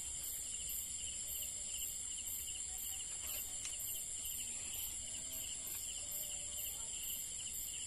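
Night chorus of crickets and other insects: a steady high-pitched trilling, one layer pulsing about twice a second, over a low rumble.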